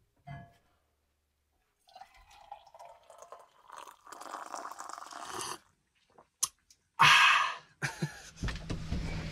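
Coffee poured from a glass French press into a mug, a few seconds of trickling liquid. A couple of sharp clicks and a short, loud rush of noise follow, and a voice begins near the end.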